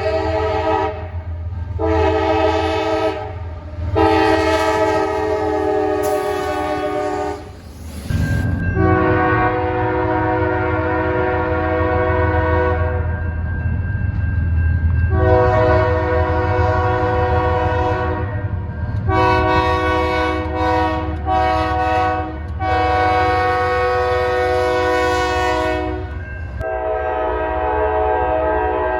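Locomotive air horn sounding a chord in a long series of blasts, most several seconds long with a few short ones in the middle, over the steady low rumble of a moving train.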